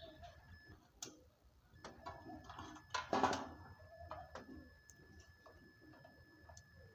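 Light clicks and taps of hand tools on metal during compressor replacement work, with a louder rattling burst about three seconds in.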